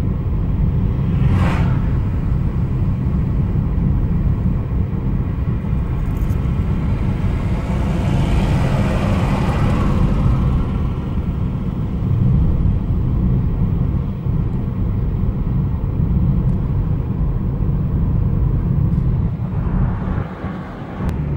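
Steady low rumble of road and engine noise inside the cabin of a moving Peugeot car, with a swell of rushing noise around eight to ten seconds in.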